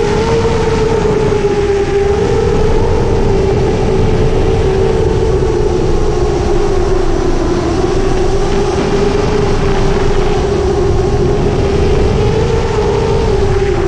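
The motors and triblade props of a 7-inch long-range FPV quadcopter, with Brother Hobby 2507 1500KV motors, whining steadily in flight. The pitch wavers gently up and down with throttle, over a low rumble.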